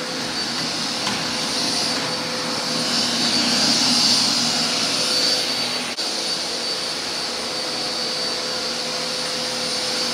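Vacuum cleaner running steadily while picking up fallen hair from the floor: a rush of air with a steady high whine.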